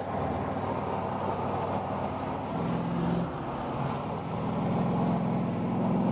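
V8 engine of a 1977 Ford XC Falcon running on the move over steady road noise, its note growing louder and firmer about four seconds in as it pulls.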